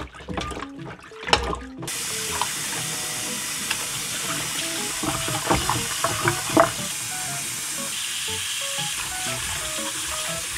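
Gloved hands sloshing and rubbing raw meat and bones in a steel bowl of water. About two seconds in, a kitchen tap turns on and runs steadily into the bowl in a stainless-steel sink, with splashes as the pieces are scrubbed under the stream.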